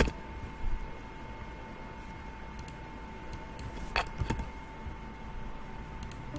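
A few sharp clicks of a computer mouse and keyboard: one at the start, a small one just after, and a pair about four seconds in. Under them runs a faint steady tone.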